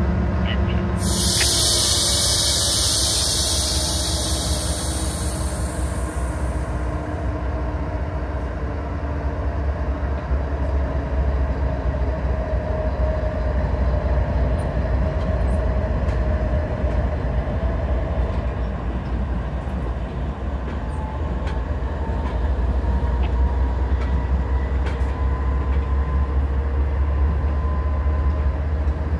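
Freight train with diesel locomotives rolling past, a steady low rumble. A loud hiss of air comes in about a second in and lasts about five seconds.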